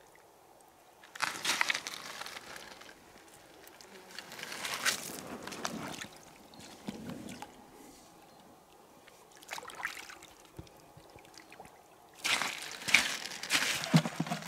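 Shallow river water splashing and sloshing as a person works a hand in it, in several short bouts with quiet between, the loudest near the end.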